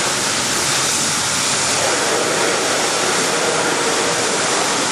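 Steady hiss of water jetting from a fire hose and splashing onto a fire engine.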